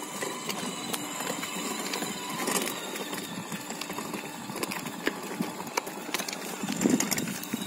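Ride-on toy motorcycle rolling over rough, gritty asphalt: a steady run of irregular clicks and rattles from its plastic wheels and body, with a louder low rumble near the end.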